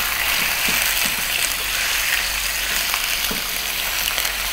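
Chunks of lamb sizzling steadily in hot olive oil in a non-stick pan as they are seared, stirred and turned with a wooden spatula.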